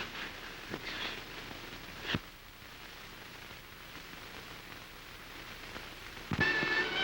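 Steady hiss of an early sound film's soundtrack, with a few faint knocks and a sharper click about two seconds in. Violin music begins near the end.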